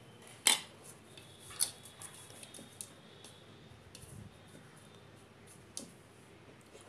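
Hands tucking a damp cloth towel around a plastic bowl of dough: faint handling with a few sharp light clicks of fingers and jewellery against the bowl, the loudest about half a second in.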